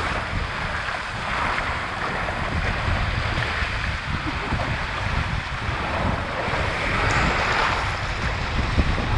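Rushing water and wind buffeting the microphone, a steady rushing hiss with a fluttering rumble, during a ride down a water-park tube slide.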